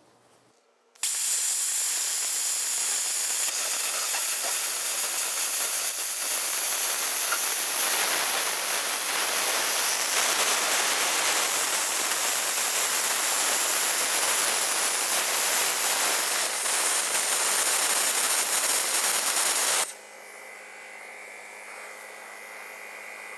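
Plasma cutter arc cutting through a steel car wheel rim: a loud, steady hiss starts about a second in, gets a little louder about eight seconds in, and stops abruptly near the end, leaving a quieter steady hum. At first the cut does not fully pierce the rim; then it breaks through and throws sparks.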